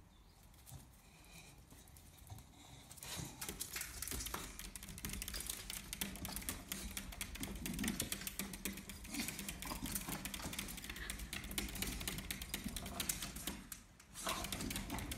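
A Staffordshire bull terrier's claws clicking and scrabbling rapidly on a glass door and tile floor as she jumps up at the door, starting about three seconds in, with a brief pause near the end.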